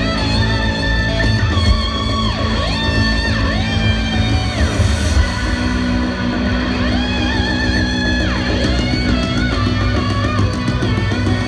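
Live rock band played loud through a stadium sound system and heard from the crowd: an electric slide guitar glides up and down in long sweeps over a steady, sustained bass.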